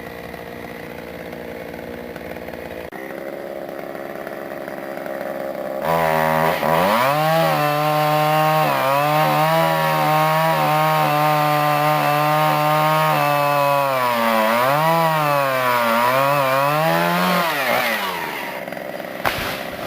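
Chainsaw idling, then opened up about six seconds in and cutting through a tree branch for about twelve seconds. Its pitch dips and recovers as the chain loads up in the wood, before it drops back to idle. A short knock comes near the end.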